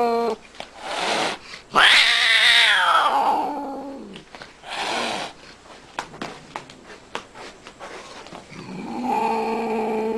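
A cat meowing in long, drawn-out yowls that slide down in pitch as they end: one about two seconds in, a short one in the middle, and another near the end, with the tail of an earlier call at the very start. A few soft clicks fall in the quieter stretch between.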